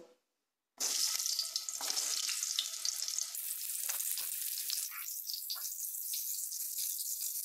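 Halved pointed gourds (parwal) sizzling as they are laid into very hot mustard oil. The sizzle starts suddenly about a second in, loudest at first, and then runs on steadily.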